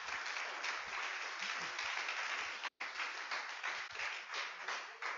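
Audience applauding, a dense patter of many hands clapping, with a brief dropout in the sound about two and a half seconds in.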